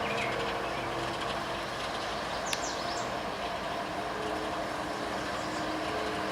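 Diesel locomotives of a CSX intermodal freight train running as the train goes by: a steady engine drone over a constant rolling noise.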